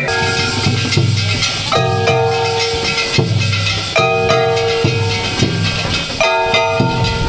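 Gion festival float music: low drum beats with ringing metallic strikes that recur every second or two.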